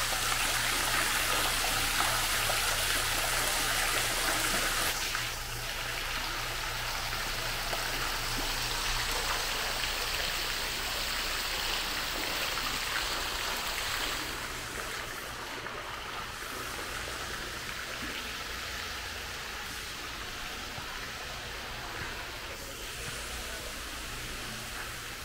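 Mall fountain water splashing steadily, with a drop in level about five seconds in and again about fourteen seconds in. A faint low steady hum runs beneath it.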